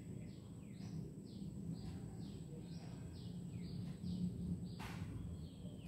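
A bird calling in a rapid series of short downward-sliding chirps, about three a second, over a steady low hum. A single sharp click comes about five seconds in.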